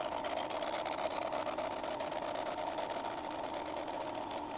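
Bench grinder running steadily while the edge of a thin metal disc is held to its wheel to take off burrs, a constant whirring grind.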